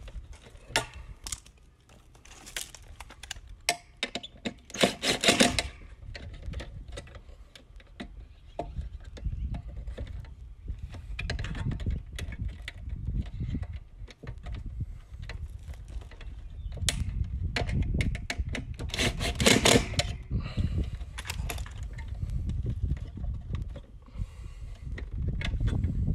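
Wires and metal tools being handled in a sheet-metal electrical disconnect box while ground wires are terminated: many small clicks and rattles, with two short louder sounds about five seconds in and again near twenty seconds, over a low rumble.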